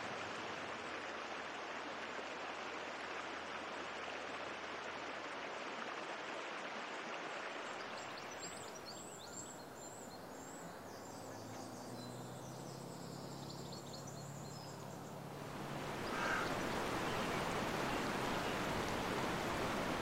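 Shallow snowy mountain stream rushing over rocks. About eight seconds in it gives way to a quieter stretch with faint high chirps and a low hum. From about sixteen seconds, louder, steady rushing river water takes over.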